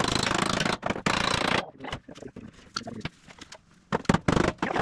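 Hammering a dent out of the steel front body panel of a 1979 Ford F250. A dense rattling noise for about a second and a half, then a quieter stretch of light knocks, then a quick run of separate sharp blows near the end.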